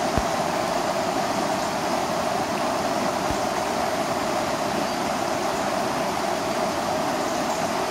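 River water rushing steadily over a low weir, the constant noise of churning white water.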